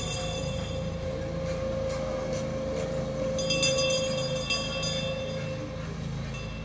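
Trackless party train running as it drives away, a steady engine hum with a held tone that fades about five to six seconds in, with music playing alongside.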